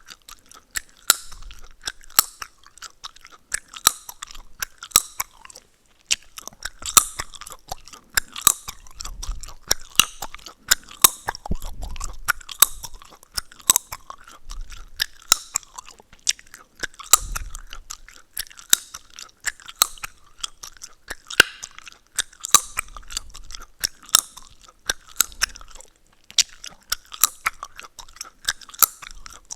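Gum chewed close to the microphone, with wet smacking and sharp cracking pops several times a second in an uneven rhythm.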